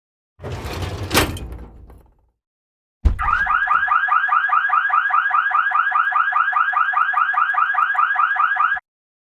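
A short noisy burst that fades over about two seconds. Then, about three seconds in, an electronic alarm sounds: a fast pulsing tone of about six pulses a second that holds steady for nearly six seconds and cuts off suddenly.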